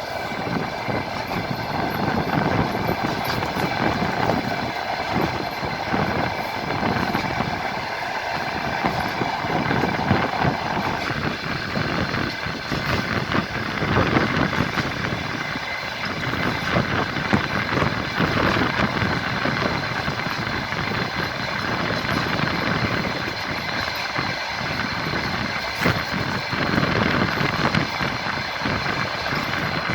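Passenger train running, heard from inside a carriage: a steady rumble with the wheels knocking over the rail joints. A band of hiss fades away about eleven seconds in.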